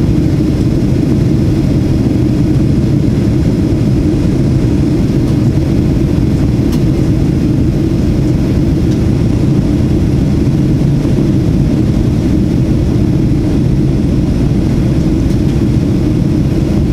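Steady low rumble inside the cabin of a Boeing 737-800 descending on approach, made up of CFM56-7B engine noise and airflow over the fuselage.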